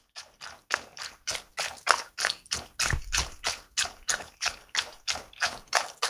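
AI-generated sound effect (Stable Audio) of a dog drinking water: quick, even lapping, about three laps a second.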